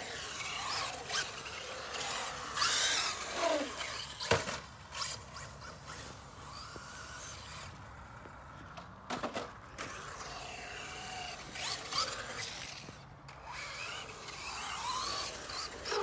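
Radio-controlled cars' electric motors whining, the pitch rising and falling over and over as they speed up and slow down, with a couple of sharp knocks partway through.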